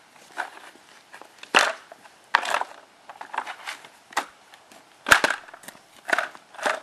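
Polypropylene plate-lock strips knocking and scraping as they are set down against a steel road plate on asphalt: a string of irregular knocks and scrapes, the sharpest a crisp click about five seconds in.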